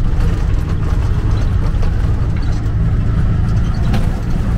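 Motorcycle rickshaw (tuk-tuk) running steadily along the road, a loud low engine and road rumble heard from inside its open passenger cab.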